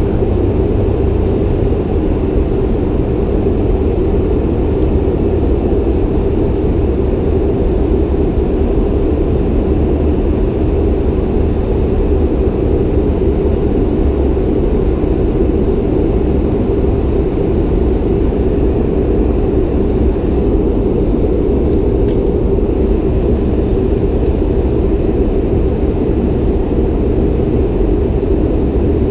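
Steady cabin noise inside a Bombardier CRJ-700 regional jet climbing after takeoff: a constant low drone of its rear-mounted GE CF34 turbofans and rushing airflow, heard from the front row of the cabin.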